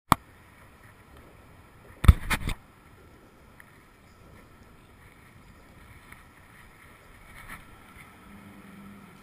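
A sharp click at the start, then a quick cluster of three knocks about two seconds in, typical of the rod, reel or camera being handled, over faint steady outdoor background noise.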